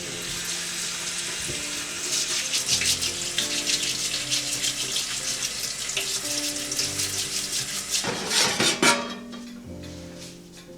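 Kitchen tap running into a sink with water splashing, a few louder splashes about eight seconds in, then the flow dies away near the end.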